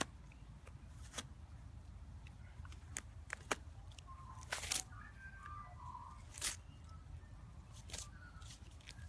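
Dog tearing and chewing at a paper wrapping: scattered, faint crinkles and rips of paper, with a few sharper clicks.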